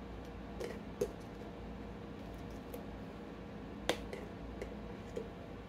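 A few sharp clicks and taps of a utensil against a glass mayonnaise jar and bowl as mayonnaise is scooped out, the loudest about a second in and just before four seconds, over a faint steady hum.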